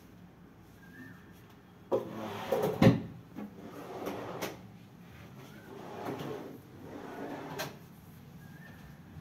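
Wardrobe drawers sliding out and being pushed shut on their runners several times, with a sharp knock about three seconds in as one closes.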